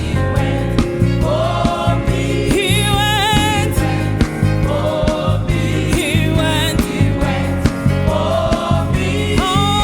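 Youth choir singing gospel music with vocal vibrato over a band accompaniment with a steady beat and bass.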